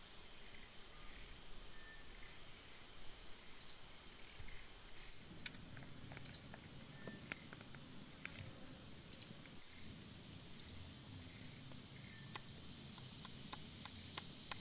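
Outdoor forest ambience: a steady high-pitched insect drone runs throughout, with short chirping bird calls every second or two. A few faint clicks are scattered through it.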